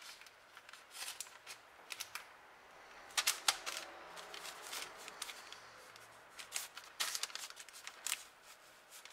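Baking parchment rustling and crinkling under hands that press a braided strand of shortcrust dough around a pastry disc: irregular soft rustles and small clicks, with busier clusters about three seconds in and again near seven seconds.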